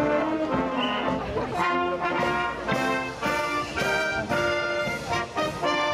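Marching band playing a brass tune on the move, with trombones, saxophones and a sousaphone, in a steady marching rhythm.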